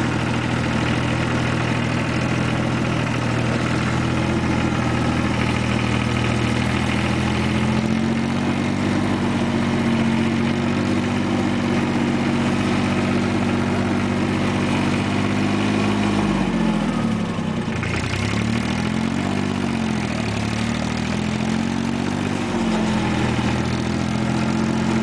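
Compact diesel farm tractor engine running while the tractor is driven. Past the middle the engine speed drops sharply and picks back up two or three times before settling steady again.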